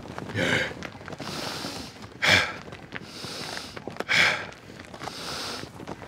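A man's heavy, labored breathing: three loud gasps about two seconds apart, with quieter rasping breaths between them. It is the breathing of a badly wounded, exhausted man.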